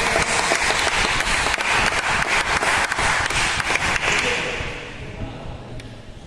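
Spectators clapping as a rally ends, a round of applause that fades away about four to five seconds in.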